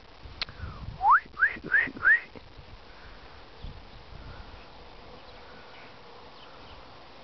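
Four quick rising whistles in a row, a person whistling to call a dog, about a second in. Insects buzz faintly throughout.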